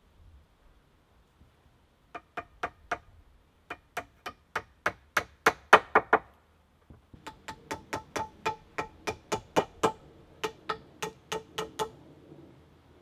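Hand-tool blows knocking a wooden peg into a log bunk-bed frame: three runs of quick, evenly spaced strikes, about four a second, first four, then about ten growing louder, then a longer run with a ringing wooden note.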